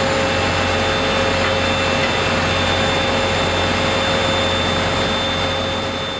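Steady roar of factory machinery with a few thin steady whining tones and a low hum underneath, fading out at the very end.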